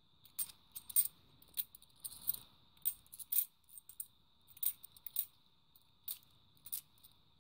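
Cupronickel UK 50p coins clicking against each other as they are slid one by one off a handheld stack, a short, sharp metallic click every half second or so at an uneven pace.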